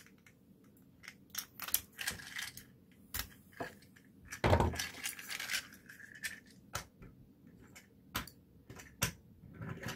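Small sharp clicks and snaps of a thin 3D-printed plastic brim being clipped with flush cutters and torn off a print-in-place toy, with a louder crunch of plastic about four and a half seconds in.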